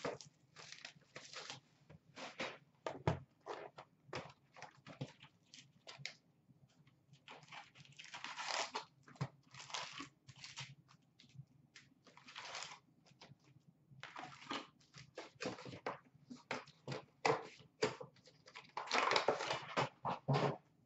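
A sealed hockey card box being opened and its wrapped card packs handled: irregular scrapes and taps of cardboard and paper, with crinkling of the pack wrappers. Longer stretches of crinkling come about eight seconds in and near the end.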